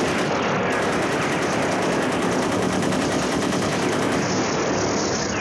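Machine-gun fire battle sound effect played through a theatre's sound system: a dense, rapid, continuous rattle of shots.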